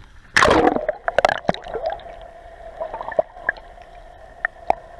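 Action camera plunging into the sea: a loud splash about half a second in, then muffled underwater gurgling with sharp knocks over a steady hum.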